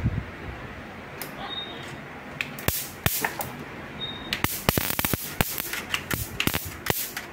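An electric mosquito-swatter racket's high-voltage grid arcing as a screwdriver tip bridges its mesh layers. It gives a rapid, irregular run of sharp snapping sparks that starts about two and a half seconds in, a sign that the racket's zapper circuit still works.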